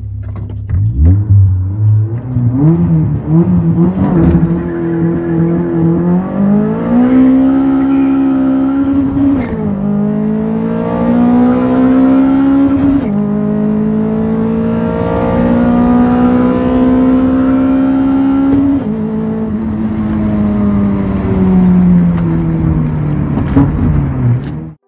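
Toyota 2ZZ-GE 1.8-litre four-cylinder engine under hard acceleration, heard from inside the cabin: the revs climb high in each gear, the pitch dropping at upshifts about 9, 13 and 19 seconds in. After the last shift the revs slowly fall away, and the sound cuts off just before the end.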